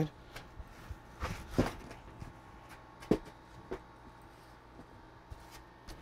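Handling noises from a 3D printer's metal frame being gripped and turned: scattered light knocks and clicks with some rustling, the loudest knock about three seconds in.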